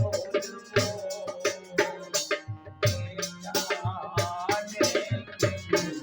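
Instrumental passage of a devotional song: a wavering melody line over quick, regular hand-drum strikes, low beats and shaker.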